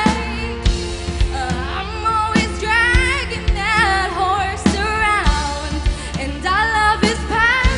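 A solo female singer singing live into a handheld microphone, her sustained notes carrying a wide vibrato, over a live band's accompaniment with regular drum beats.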